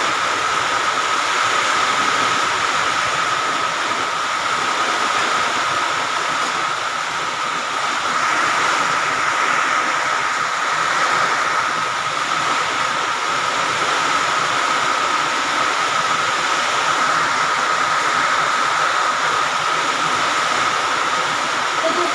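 Heavy rain pouring down, a steady hiss that holds without let-up.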